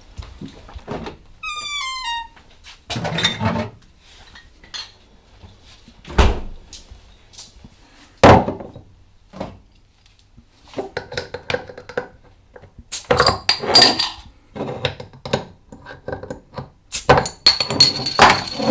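Glass beer bottles being handled and set down on a kitchen worktop: a couple of heavy thunks, then a run of lighter knocks and glassy clinks. There is a short falling squeak about a second and a half in.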